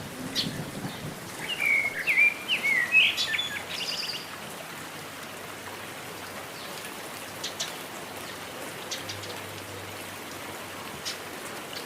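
Steady rain hissing and pattering on a surface, with scattered sharp drips. A bird gives a quick run of short chirps about two seconds in.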